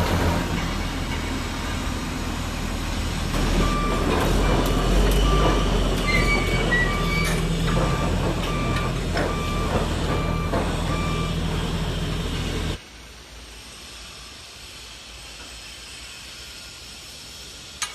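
Rotary drilling rig's engine running, with a warning alarm beeping evenly about twice a second, like a reversing or travel alarm. Near the end the machine sound cuts off abruptly, leaving a faint hiss.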